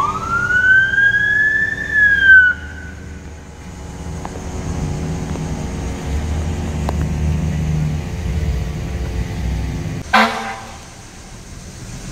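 Fire department emergency vehicle siren wailing, rising in pitch and then falling away over the first couple of seconds. A vehicle engine rumbles for several seconds after it. About ten seconds in there is one short, loud horn blast.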